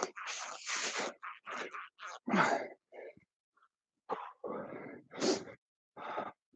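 A person breathing hard under exertion: short, forceful, irregular breaths and exhalations with brief gaps between them.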